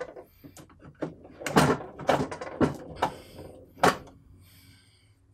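The belt sander attachment of a Triton oscillating spindle and belt sander being worked loose and lifted off the machine's table: a handful of knocks and scrapes, the sharpest about four seconds in.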